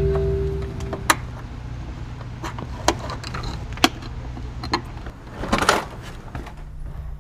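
Metal doorknob and lock being forced by hand: several sharp clicks about a second apart, then a short, louder rattle of the knob and latch about five and a half seconds in, over a low steady hum.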